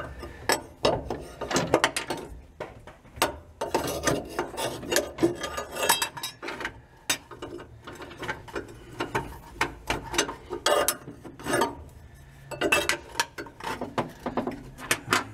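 Irregular metallic clicking and rattling from a 1949 Chevy 3100 truck's floor-mounted parking brake lever being worked and its metal retainer plate fitted around it at the floorboard, with a couple of short pauses.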